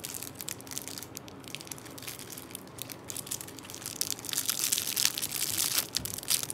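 Clear plastic bags around camera lens filters crinkling as they are handled: a fast scatter of small crackles that grows louder about four seconds in.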